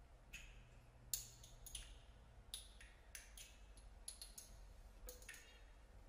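Sparse, irregular sharp clicks and taps from an ensemble playing extended techniques in a very quiet passage of contemporary chamber music, about a dozen scattered over a few seconds. A low steady hum lies underneath.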